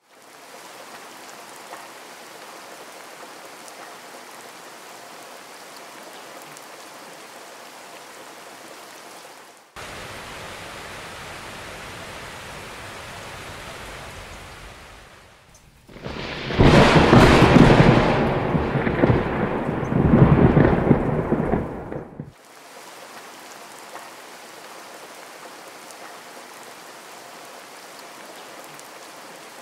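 Heavy rain falling steadily, in separate stretches that cut in and out. For about six seconds past the middle a much louder deep rumble of thunder, in two swells, rises over the rain and breaks off suddenly.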